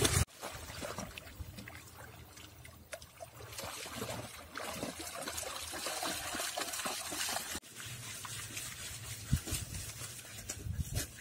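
Two dogs, a German Shepherd x Belgian Malinois and a husky, wading and splashing through shallow lake water, the water trickling and sloshing around their legs. Near the end, paws scrape and slap in wet sand as they dig at the water's edge.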